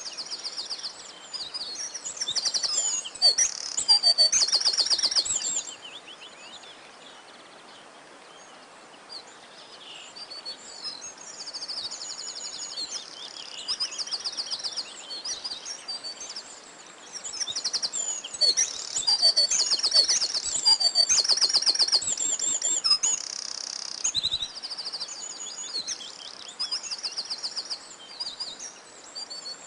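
Several songbirds singing together, with fast high trills and chirps that crowd together in two busy spells and thin out in between, over a faint steady background hiss.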